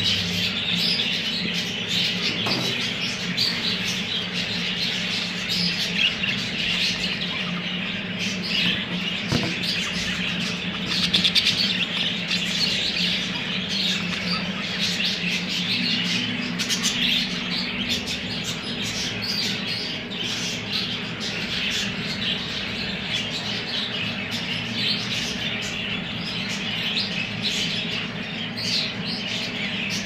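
Many budgerigars chattering and chirping at once, a dense, unbroken warble of short calls, over a steady low hum.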